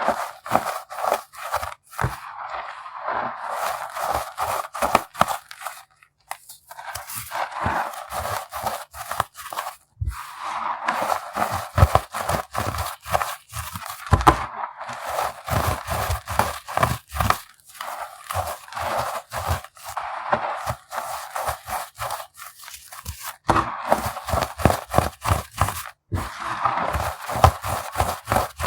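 Unsifted lumps of compressed baking soda being crushed: a dense run of crisp crunches and crackles in spells, with brief pauses between them.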